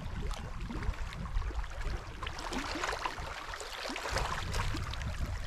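Wind rumbling on the microphone over small waves lapping against the shore, with faint scattered ticks and splashes.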